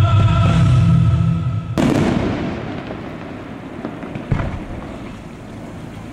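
Show music cuts off abruptly about a second and a half in, leaving the fireworks alone: shell bursts crackling and popping as their falling stars fade. There is one sharp report about four seconds in.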